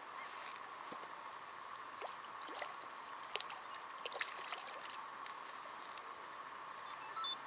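Faint water lapping and trickling, with a few small splashes and clicks scattered through the middle.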